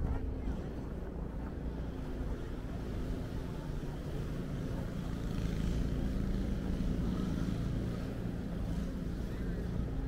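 Steady low rumble of city street traffic, swelling a little in the middle, with wind buffeting the microphone.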